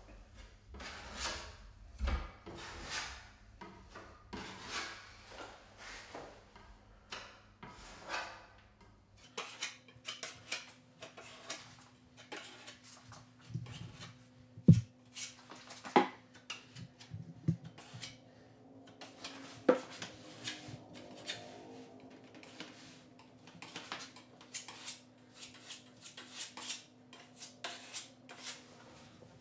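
Metal putty knife scraping wood putty out of a cup and spreading it into nail holes in wooden trim: irregular short scrapes and clicks, with one sharp clack about halfway through.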